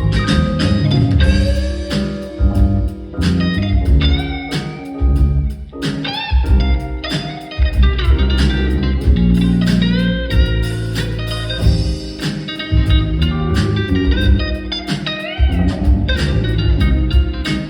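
Band playing an instrumental fusion tune: electric guitar lead with bent, sliding notes over bass guitar and drums.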